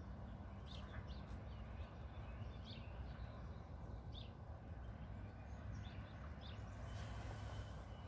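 Scattered faint bird chirps over a steady low outdoor rumble, with a soft rustle near the end.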